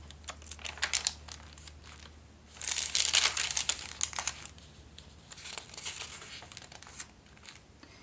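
Paper pages of a handmade junk journal being turned and handled: irregular crinkly rustling of stiff paper, loudest about three seconds in, with smaller rustles before and after.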